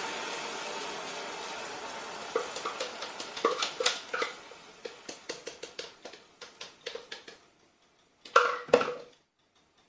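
Hot cream poured into molten caramel in a stainless steel saucepan: a hiss of sizzling and steam that fades away over the first few seconds, then scattered crackles and pops that thin out. A brief, louder clatter of metal comes near the end.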